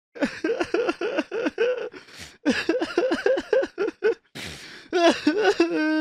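A person crying: two runs of short, choppy sobs, about five a second, each broken by a sharp gasping breath in, then rising into a drawn-out wail near the end.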